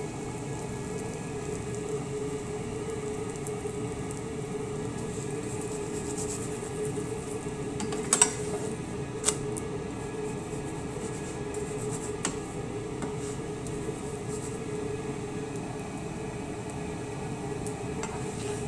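Steady mechanical hum with one constant droning tone, under a slotted metal spatula on a nonstick frying pan with a paratha in it. The spatula knocks on the pan a few times, loudest about eight seconds in and again around nine and twelve seconds.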